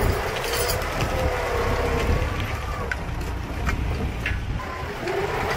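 Farm tractor's diesel engine running under load as it pulls a mounted three-disc plough through dry soil. The engine note wavers up and down, with scattered sharp knocks from clods and the plough discs.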